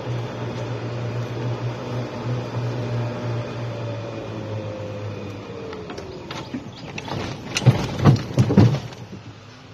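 Golf cart driving: a steady low hum and a motor whine that falls slowly in pitch as the cart slows, then a quick cluster of knocks and thumps near the end.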